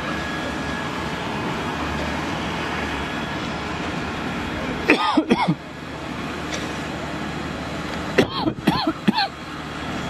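Steady low rumble around a burning car. It is broken twice, about five and eight seconds in, by short bursts of loud calls that rise and fall in pitch.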